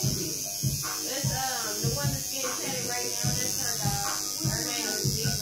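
Tattoo machine buzzing steadily.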